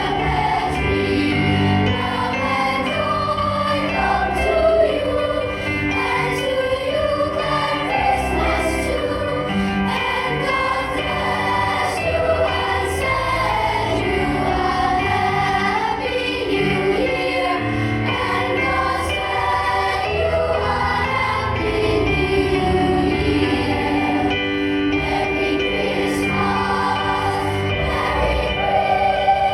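A choir singing a Christmas medley in several parts, with instrumental accompaniment.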